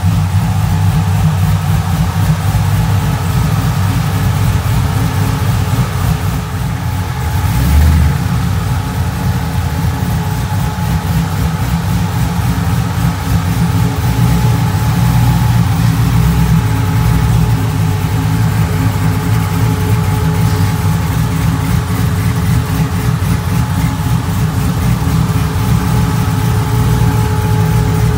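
A pickup's 416 V8 running steadily at idle, with a short dip and then a brief low surge in the engine sound about eight seconds in.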